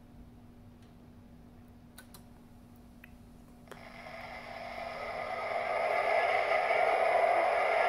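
A few faint clicks, then about four seconds in the onboard sound system of an MTH Railking B&O E-8 model diesel locomotive starts its diesel engine sound. The sound grows louder over about two seconds and then holds as a steady running diesel.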